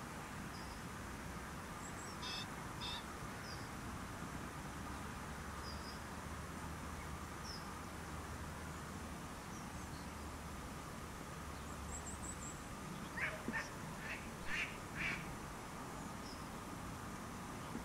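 Duck quacking: two short quacks about two seconds in, then a quick run of about six quacks near the end. Small birds chirp faintly over a steady outdoor background hiss.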